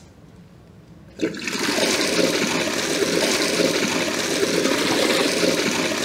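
Water rushing out of a glass model tank through its penstock pipes and opened drain valves, starting suddenly a little over a second in and then running steadily.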